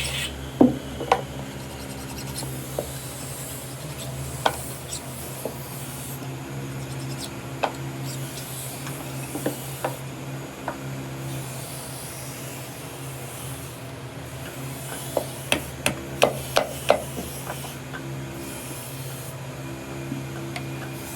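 Hand work on wood: rubbing and rasping strokes with scattered sharp taps, over a steady low hum. A quick run of taps comes near the end.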